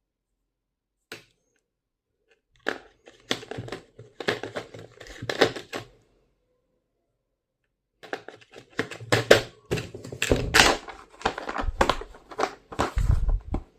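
Packaging being torn open and crinkled by hand: two spells of dense crackling and rustling, with a single click before them and heavier knocks near the end.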